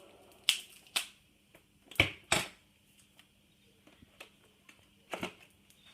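A series of sharp clicks and knocks: two about half a second apart, a louder pair about two seconds in, and another double knock near the end, with faint ticks between them over a faint steady hum.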